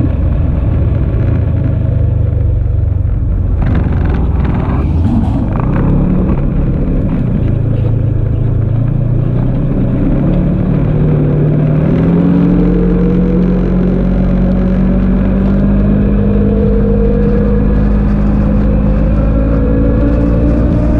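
Engine of an off-road vehicle running under a constant low rumble, with a rougher clattering stretch a few seconds in and the engine pitch climbing steadily through the second half as it speeds up.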